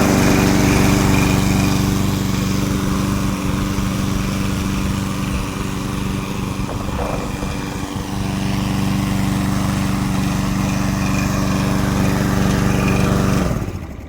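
Gasoline engine of a remote-control lawn mower running steadily just after being started. The sound cuts off suddenly near the end.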